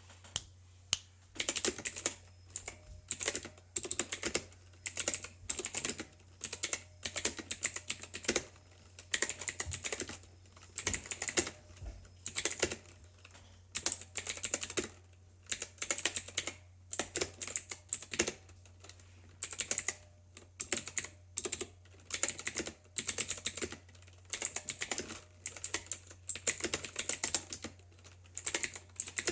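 Typing on a mechanical keyboard with clicky Outemu Blue switches: rapid runs of sharp, high clicking keystrokes in bursts separated by short pauses.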